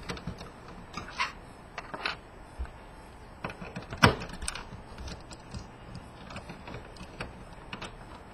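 Scattered small clicks and taps of a screwdriver and loose screws on the metal casing of a PS3 Blu-ray drive being taken apart, with one sharper knock about four seconds in.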